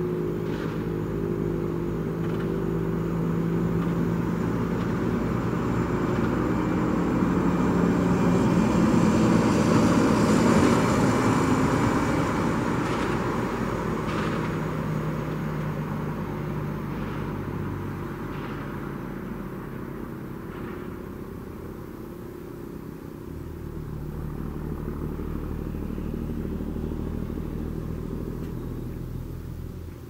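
Sentry 7V8 outdoor warning siren sounding a steady tone, slowly swelling and fading in loudness as its horned head rotates. The uploader thinks it is run on a sharply raised voltage.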